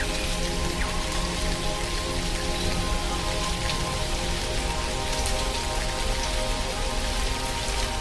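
Steady rain falling, with scattered louder single drops, over background music of sustained held notes.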